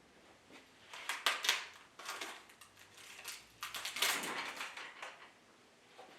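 Handling noises: short clusters of knocks, clicks and rattles from objects being handled, about a second in, again around two seconds, and a longer spell of rattling from about three and a half to five seconds.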